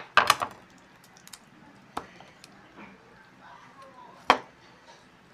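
Kitchen knife knocking and tapping on the cutting surface while cutting up raw chicken legs: a few sharp knocks, the loudest just after the start and about four seconds in.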